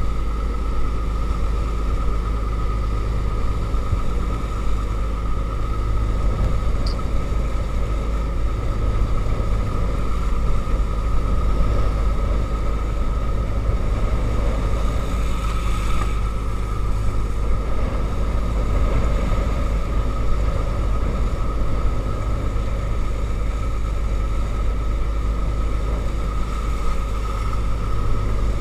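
A fishing trawler's inboard engine running steadily under way: a loud, even drone with a constant high whine over it, mixed with the wash of rough water at the stern.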